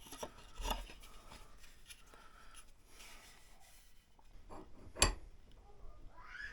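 Hacksaw scraping faintly against a hard hickory axe handle in uneven strokes, with small knocks of handling and a sharp click about five seconds in.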